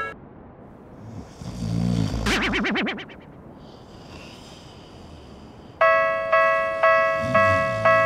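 Short comic wobbling sound effect about two seconds in, then about six seconds in a Japanese railroad crossing bell starts ringing its kan-kan, about two strikes a second.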